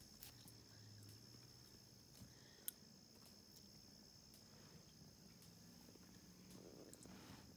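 Near silence: a faint, steady high-pitched tone, with one faint tick nearly three seconds in.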